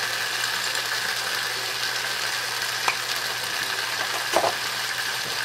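Beef, lamb and chopped vegetables sizzling steadily in a frying pan as they sauté toward caramelizing, with two light clicks near the middle and end.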